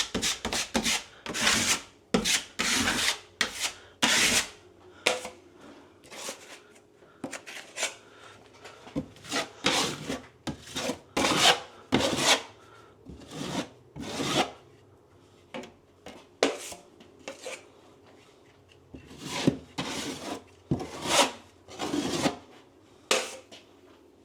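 A hand tool scraping or rubbing across a plaster or drywall surface in short, repeated strokes. The strokes come thick in the first few seconds, thin out to a lull past the middle, and pick up again near the end.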